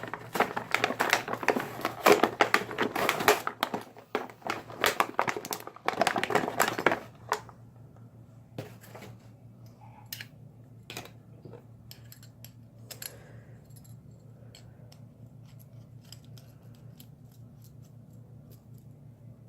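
Packaging crinkling and crackling in dense bursts for about seven seconds as it is handled and opened, then only faint scattered clicks of handling over a low steady hum.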